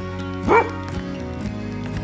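A dog gives one short yelp that rises and then falls in pitch, about half a second in, over background music.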